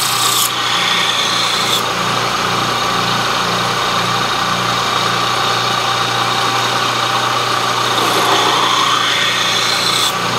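Benchtop belt sander running steadily, with a steel knife blank held in pliers against the abrasive belt: the motor hum under the hiss of steel being ground, the grinding sound shifting as the blade is worked on the belt.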